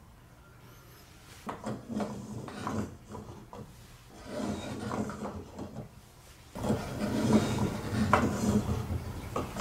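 Hand-worked plastic staircase lift of a toy marble run, its stepped plates sliding against each other with rubbing and clacking as the balls are raised step by step. It comes in three bursts, the last the loudest.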